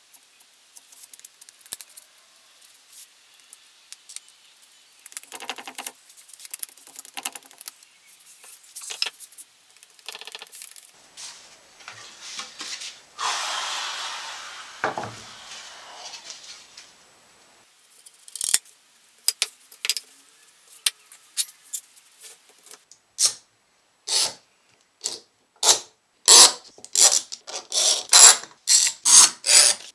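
Wood glue being scraped and spread over a guitar body with a plastic spreader, then the wooden parts handled and laid together. In the last few seconds come quick, sharp clicks as clamps are set and tightened to press the maple top down for glue-up.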